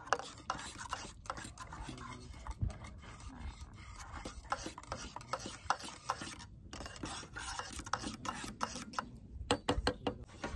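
Wooden stirrer scraping and clicking against the inside of an insulated mug as a drink is stirred, with irregular small knocks, a quick cluster of them near the end.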